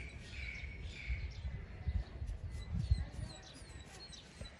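Small birds chirping repeatedly, many short chirps, over a low rumble that swells about two and three seconds in.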